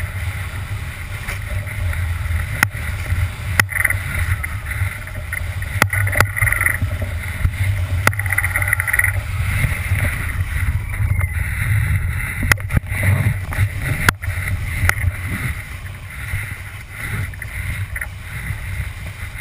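Wind buffeting the microphone of a kitesurfer's camera as the kiteboard skims over choppy sea, with rushing water and sharp knocks now and then.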